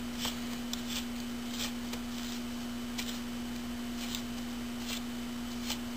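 A 29/64-inch drill bit twisted by hand in a hole in a router's plastic case, scraping and shaving the plastic in short, irregular strokes. A steady low hum runs underneath.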